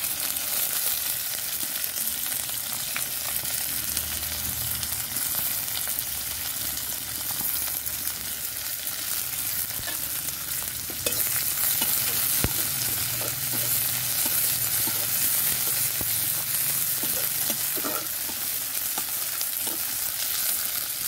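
Chopped onions with green chillies and whole spices sizzling in hot oil in an iron karahi: a steady hiss that gets a little louder about halfway through. Near the end a metal spatula stirs and scrapes them in the pan.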